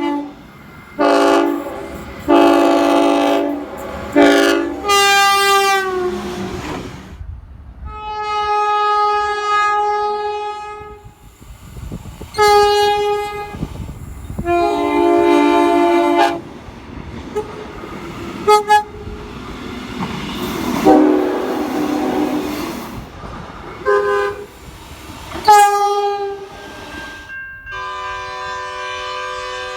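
Train horns sounding a series of short and long blasts, each a multi-note chord, from several different trains. Some blasts drop in pitch as a train passes.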